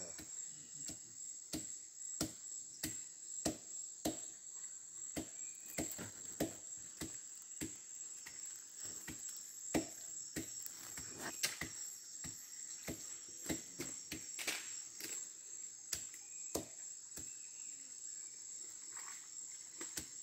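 Steady high-pitched drone of rainforest insects, a cricket-like chorus. Over it comes a run of short, sharp clicks or knocks, about one or two a second.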